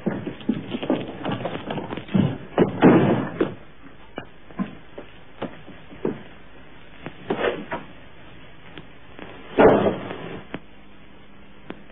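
A series of knocks and thumps on wood, then one loud bang a little before the end as a bolted wooden cottage door is kicked open.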